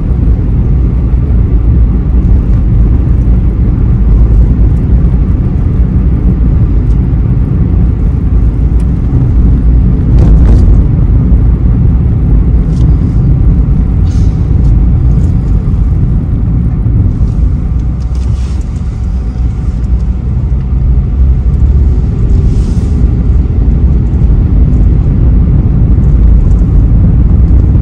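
Car engine and road noise heard from inside the cabin while driving: a steady low hum that eases slightly about two-thirds of the way through.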